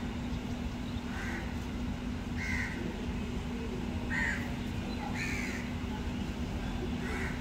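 A crow cawing: five short caws spaced a second or two apart, over a steady low hum.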